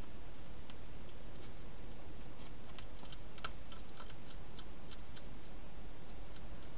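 A wild hedgehog chewing dry food: scattered faint crunchy clicks, bunched around the middle, over a steady hiss.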